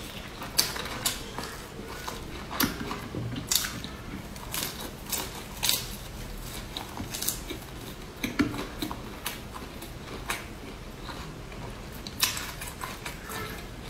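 Close-miked biting and chewing of spiral-cut fried sausages: irregular sharp crisp clicks with softer wet mouth sounds between them.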